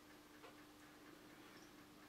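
Near silence: faint, sharp ticks evenly spaced about once a second over a low steady hum.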